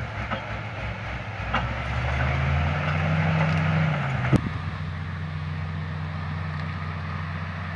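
LiuGong crawler bulldozer's diesel engine running, its pitch climbing for about two seconds before a sharp metallic clank about four seconds in, then settling to a lower, steady run. A few light clanks come in the first two seconds.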